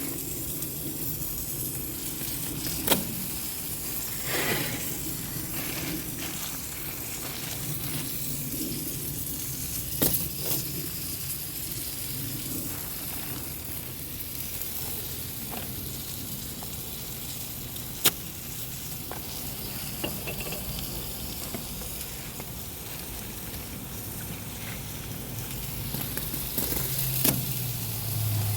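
Marinated goat meat sizzling on foil over a grill fire: a steady hiss, broken by a few sharp clicks several seconds apart.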